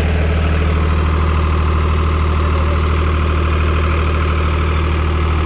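Sonalika DI 35 tractor's diesel engine idling steadily, with a deep, even hum and no change in speed.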